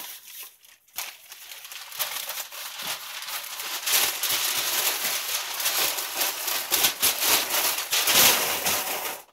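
Cardboard box and packing paper being handled: busy rustling and crinkling with many small knocks, louder from about four seconds in, stopping abruptly at the end.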